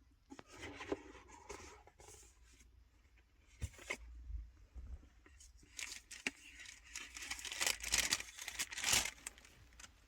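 Rustling and crinkling of wrapping being handled, with sharp tearing sounds that grow busier and louder in the last few seconds.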